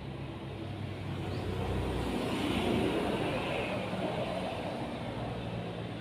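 Engine noise of a passing motor vehicle, swelling to its loudest about halfway through and easing off.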